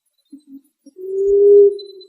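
Emerald dove (punai tanah) cooing. Two short low notes about a third of a second in are followed, about a second in, by one long, steady, slightly rising moaning coo.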